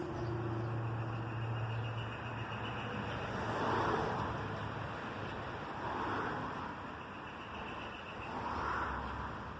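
Road traffic: cars passing one after another, each swelling and fading, with a low steady engine hum during the first couple of seconds.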